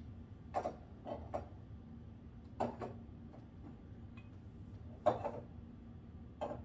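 Short knocks and clicks of candles and candle holders being set down and adjusted on a mantel shelf, about six in all, the loudest about five seconds in.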